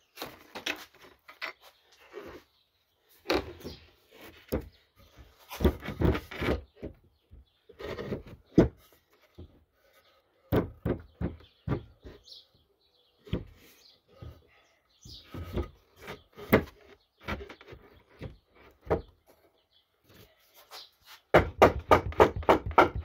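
White oak frame pieces knocking, sliding and scraping against each other on a wooden workbench as the legs and stretchers are pushed together, in irregular thumps and short scrapes. Near the end, background music with a steady, quick beat starts.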